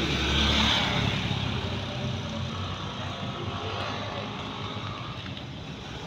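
Street traffic: a motor vehicle's engine is loudest in the first second, then fades under steady road noise.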